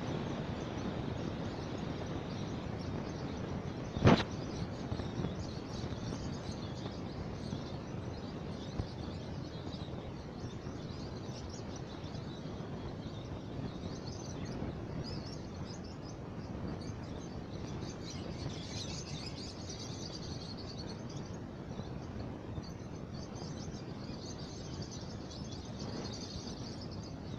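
Birds chirping faintly over a steady outdoor background hiss, the high chirps coming in clusters in the second half. A single sharp click about four seconds in.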